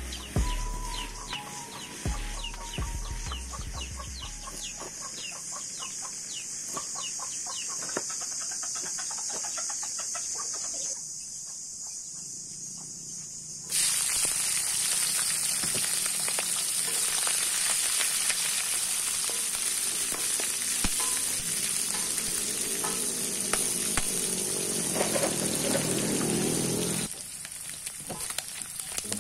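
Pieces of rice-field eel deep-frying in hot oil in a wok: a loud, steady sizzle that starts suddenly about halfway through and drops off suddenly near the end. Before it, a quieter crackling hiss under fading background music.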